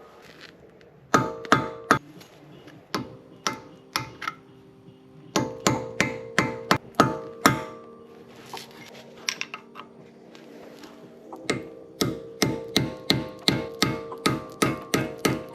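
A hammer striking steel, each blow ringing: a few scattered hits, then quick runs of about three blows a second with a pause in between.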